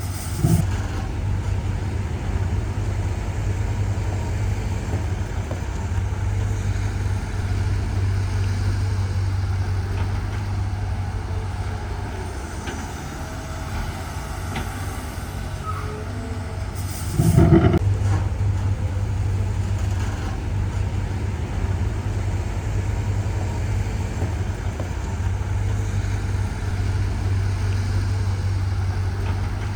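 Heavy diesel construction machinery running with a steady low drone, with a short loud burst just after the start and a louder one, about a second long, around 17 seconds in.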